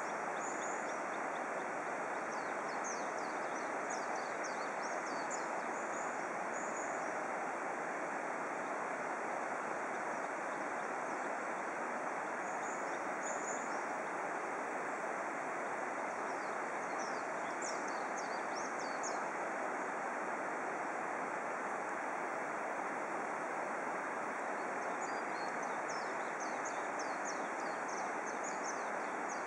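Steady outdoor background hiss with no clear source, broken several times by short runs of high chirping from small birds or insects.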